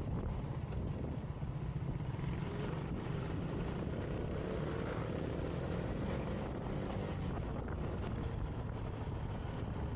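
Motobi Evo 200 motorcycle riding along a road: steady wind rush over the microphone with the engine running underneath, its note rising slightly around the middle.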